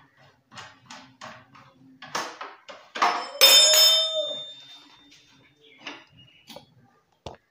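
Steel T-wrench working the centre axle nut of a Honda CD-70 motorcycle: light metal clicks, then a loud metallic clang about three seconds in that rings on for about a second. A few faint clicks follow near the end.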